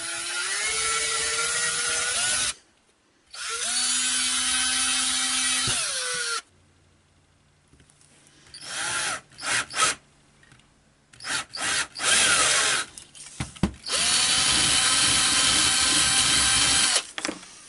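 Cordless drill boring into a small wooden part, run in several stretches of about three seconds with short trigger bursts between them. Its motor whine rises as it spins up and drops away each time the trigger is released.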